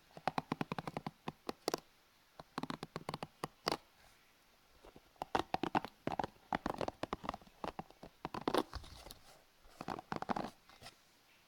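Close-miked object handling for ASMR: bursts of rapid, scratchy clicking about a second long, with short pauses between them.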